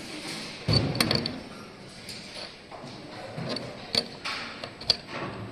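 Scattered sharp clicks and knocks, with a dull thud a little under a second in and a few brief high pings.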